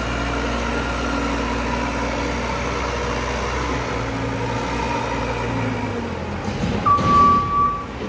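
JCB Loadall telehandler's diesel engine running steadily under load as the machine pushes into a grain heap, easing off after about six seconds. Near the end comes one high beep about a second long from its reversing alarm.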